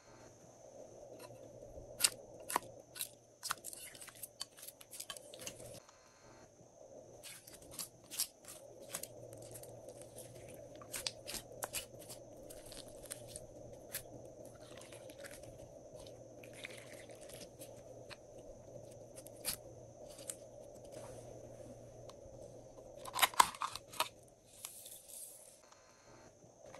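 Glossy slime being stretched and squeezed by hand, giving irregular sticky pops and clicks. Near the end there is a short, denser run of crackling as foam beads are poured from a bottle onto the slime.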